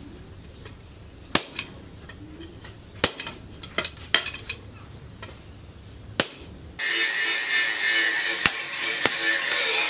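Sharp metallic clinks and knocks as blacksmith's tongs and a steel knife blank strike a steel anvil block, some in quick pairs. About two-thirds of the way in, a steady high hiss starts abruptly and runs under the last two clinks.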